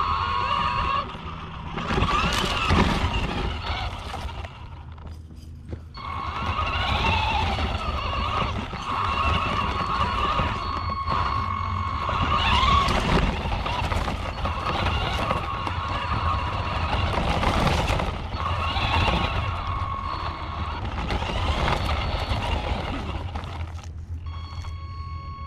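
Hosim RC truck's electric motor and drivetrain whining as the throttle comes and goes, over the rumble and rattle of the chassis and tyres bouncing across a dirt track, heard from a camera mounted on the truck. The whine cuts out about a second in and things go quieter for a couple of seconds around four to six seconds in before it picks up again.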